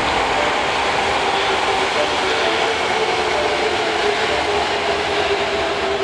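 Osaka Subway Midosuji Line train pulling into an underground platform and slowing, its wheels and motors making a loud, steady rumble with faint thin tones running through it.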